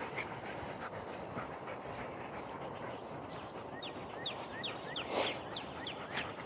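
Dogs playing together on grass, with a run of short, high, falling chirps from about four seconds in and a brief louder scuff in the middle of that run.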